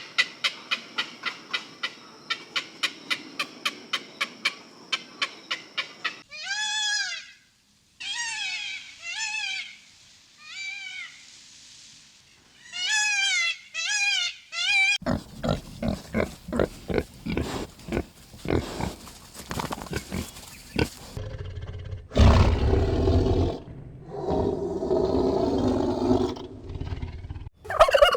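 A string of different animal sounds, cut one after another. First comes a fast, even ticking for about six seconds. Then there are short calls that rise and fall in pitch, then a run of rapid pulsed sounds, and near the end deeper, longer calls.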